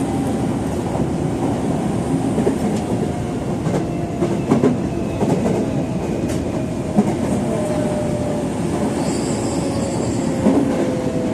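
Tobu 70000 series electric train running on the rails, heard from the driver's cab as it slows into a station: a motor whine falling slowly in pitch over a steady rumble, with scattered wheel clicks over rail joints.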